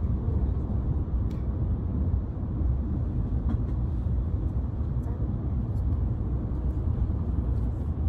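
Steady low rumble of a passenger train running, heard from inside the carriage.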